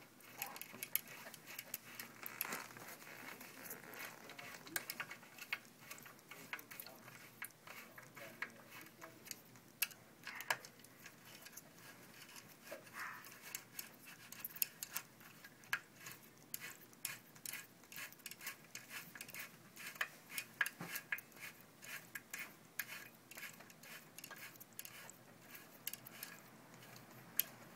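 Faint, irregular small metallic clicks and taps of a steel bolt being threaded by hand and turned with an Allen key as a kickstand is fastened to an IF Mode folding bike's frame.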